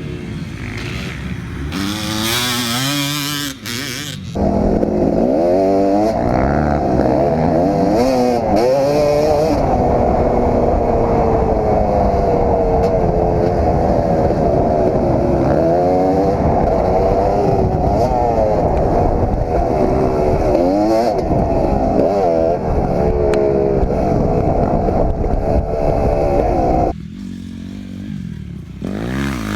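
Kawasaki KX250 two-stroke motocross engine, revving up and dropping again and again as the bike is ridden hard. The sound jumps abruptly louder about four seconds in and drops off suddenly near the end.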